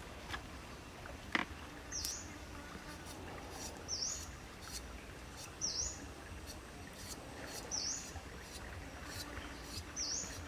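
A bird repeating a short, high chirp that dips and rises, about every two seconds, over a steady background hiss of forest ambience. A sharp click comes a little over a second in.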